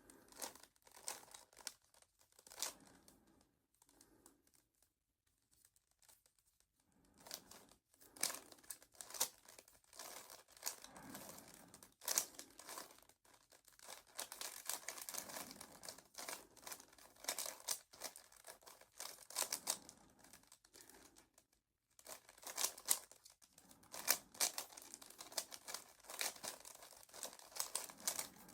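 Rubik's Cube being turned by hand during a solve: quick runs of plastic clicking and scraping as the layers rotate, in bursts separated by short pauses.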